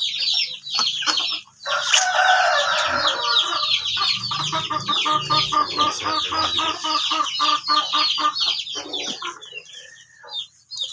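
Chickens calling: a long rooster crow about two seconds in, over a steady chorus of quick high chirps and repeated clucking that thins out near the end.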